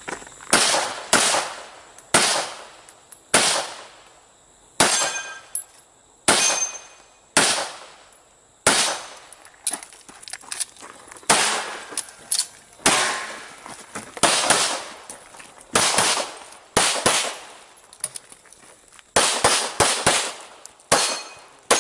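Pistol shots in a rapid, uneven string, often two in quick succession, each a sharp crack with a short echo, as the shooter fires a timed practical-shooting stage.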